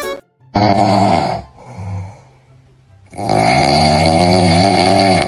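Loud, exaggerated snoring: a first snore about half a second in, a quieter breath, then a second, longer snore that holds to the end.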